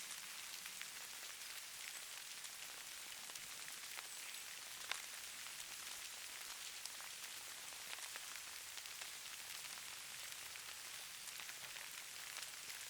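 Falling snow: a steady soft hiss with many scattered light ticks, and one sharper tick about five seconds in.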